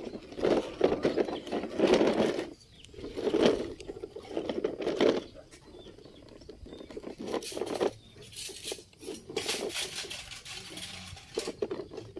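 Plastic toy dump truck rolling and scraping over gritty dirt, in irregular bursts of crunching with short pauses between.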